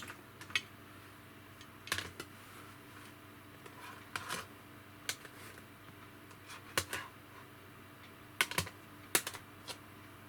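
Small plastic containers being handled: scattered sharp clicks and taps, some in quick pairs and clusters, over a faint steady hum.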